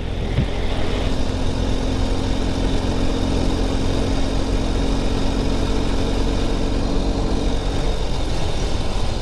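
Motorcycle engine running steadily at cruising speed, with wind and road noise rushing over the handlebar-mounted microphone.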